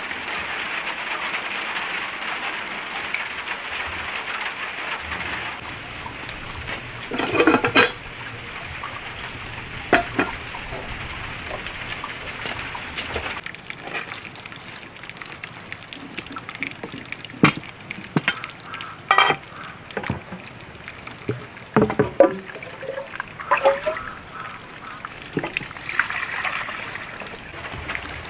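Steady watery hiss for the first five or six seconds, then a quieter background broken by scattered short knocks and clatters.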